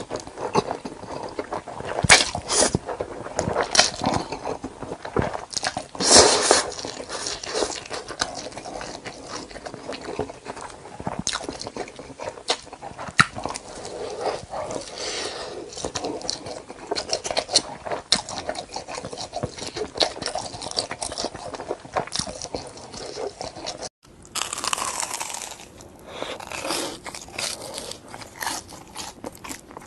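A person biting and chewing crunchy food close to the microphone: irregular crunches and chewing throughout, with a brief break about three quarters of the way through.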